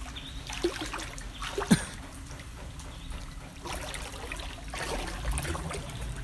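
Floodwater sloshing and splashing in uneven bursts as someone wades through it, with one short sharp knock about a second and a half in.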